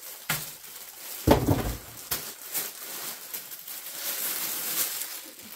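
Plastic poly mailer bag rustling and crinkling as it is handled and opened, with a loud thump about a second in.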